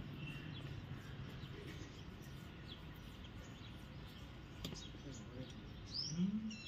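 Faint outdoor background noise with a few short bird chirps and light scattered clicks, and a brief rising vocal sound from a person near the end.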